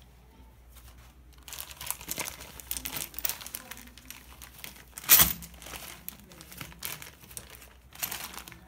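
Plastic packaging of decorative glass aquarium pebbles crinkling and rustling as it is handled. It starts about a second and a half in, with one loud, sharp burst about five seconds in.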